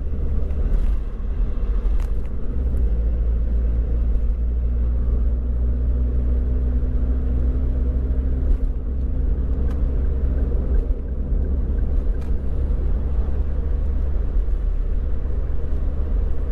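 Open-top Daihatsu Copen Cero S (LA400K) at expressway speed, heard from inside the cabin: a steady, loud low rumble of wind buffeting and road noise. The turbocharged three-cylinder engine hums underneath, and the wind gusts briefly now and then.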